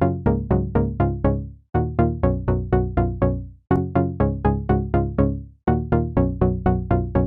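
Background electronic music: short, quickly fading notes, about four a second, in repeating phrases of about six notes, with a brief break roughly every two seconds.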